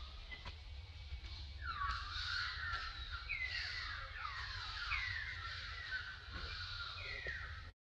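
Infant macaque crying: a string of about half a dozen high calls, each sliding downward in pitch.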